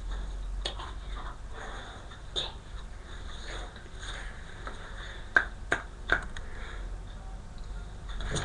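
A dog sniffing and breathing close to the microphone over a steady low rumble, with several sharp clicks, three of them in quick succession a little past the middle.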